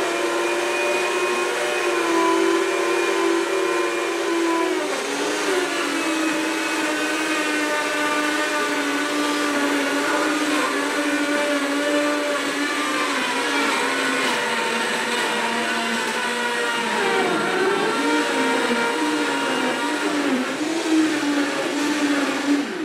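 Two high-powered blenders, a Blendtec Total Blender and a Vitamix 5200-type, running at once on a green smoothie with ice cubes, crazy loud. The motor whine dips in pitch about five seconds in and wavers later on, then winds down with a falling pitch at the very end as the cycle stops.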